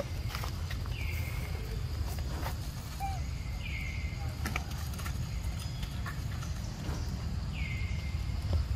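Outdoor ambience: a steady low rumble with faint steady insect tones. A short high-pitched animal call, falling and then held briefly, comes three times, roughly three to four seconds apart, with a few light clicks between.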